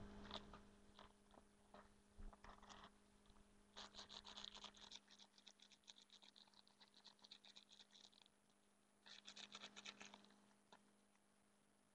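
Faint rapid rattling of a handheld baby toy being shaken, in two spells: a longer one about four seconds in and a short one about nine seconds in, over a steady low hum.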